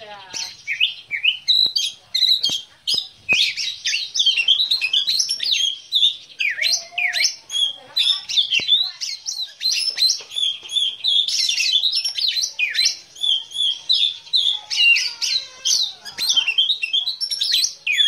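Black-breasted oriental magpie-robin (kacer dada hitam) singing without pause: a fast, varied run of whistles, chirps and trills.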